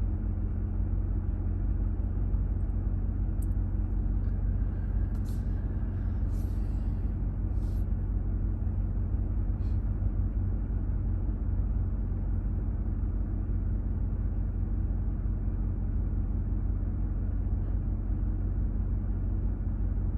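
Steady low drone and hum of a Ram TRX running, heard from inside the cab, with a few faint ticks along the way.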